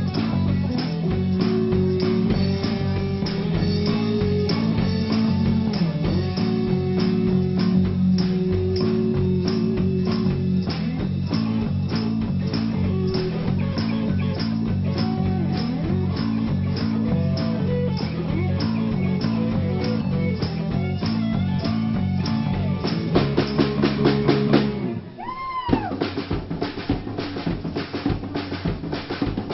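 Live rock band playing a driving groove on electric guitar, bass guitar and drum kit. About 25 seconds in, the guitar and bass cut out with a sweeping pitch glide, and the drum kit plays on mostly alone with bass drum and snare.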